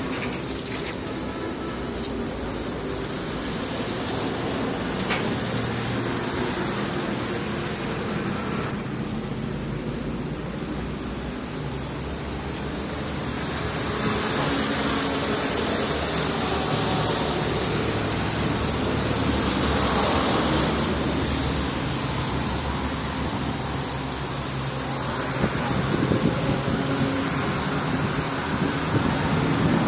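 Steady engine rumble with a noisy hiss over it, growing louder about halfway through.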